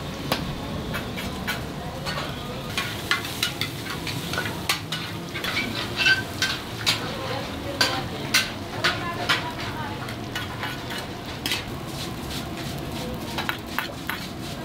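Pancit noodles stir-fried in a large wok: a steady sizzle under frequent, irregular clanks and scrapes of a metal ladle and spatula against the wok.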